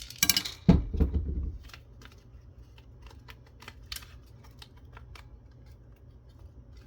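Handling noise from a camera teardown: a knock and short rustle about a second in, then scattered light clicks as the plastic housing and circuit-board parts are moved about.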